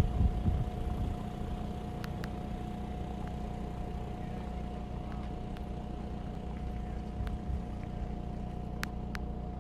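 A steady low rumble with a thin, steady whine above it and a few faint clicks.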